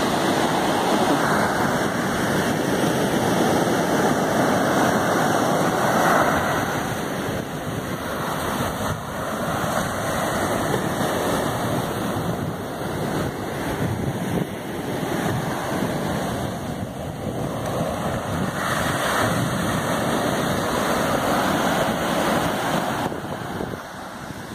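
Ocean waves breaking and washing on a beach, a steady surf wash that swells and eases, with wind buffeting the microphone.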